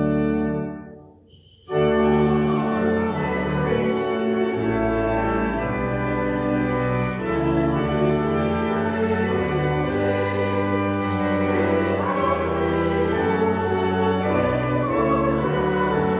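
Hymn singing by a choir and congregation with pipe organ accompaniment. Sustained chords, with a brief pause about a second in before the music starts again.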